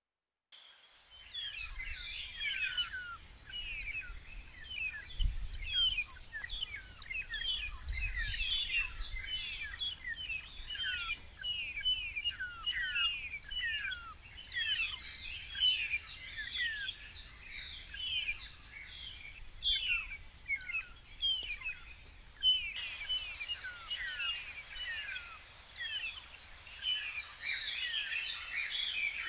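A dense chorus of birds chirping, many short downward-sweeping notes several a second, over a thin steady high tone, starting after a brief silence. A soft rushing noise joins about three-quarters of the way through.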